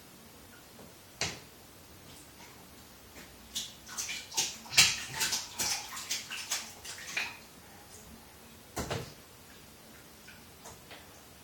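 Small splashes and knocks in a bathtub as a toddler moves in the bathwater and handles toys: one short splash a second in, a quick run of splashes and clacks for a few seconds in the middle, and a single knock near the end.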